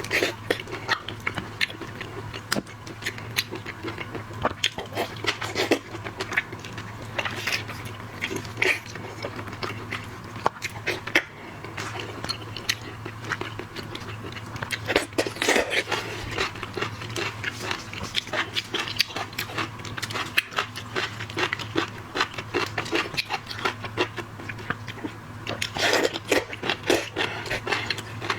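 Close-miked eating of shrimp and crab: chewing and biting with many irregular sharp clicks and crackles of shell, over a steady low hum.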